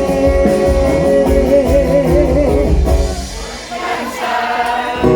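Live band playing a Thai-language pop-rock song: a singer holds one long note with vibrato over bass and drums. About three seconds in the band drops back and the sound dips, then the full band comes back in sharply at the end.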